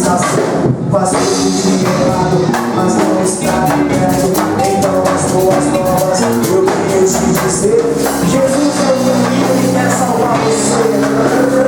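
Gospel band playing a song at full volume, with drums and tambourine keeping a steady beat.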